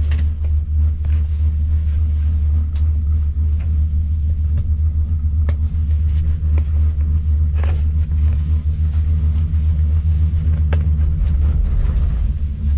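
Steady low rumble of a ski gondola cabin riding the cable, with a few faint clicks and knocks inside the cabin.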